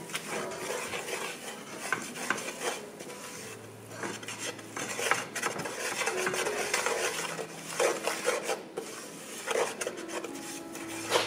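A spoon scraping and tapping against a frying pan in irregular strokes as flour is stirred into warm sausage grease to make a paste for gravy.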